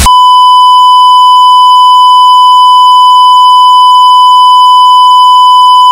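Television colour-bars test tone: one loud, steady beep held at a single unchanging pitch. It is the reference tone that goes with a test card.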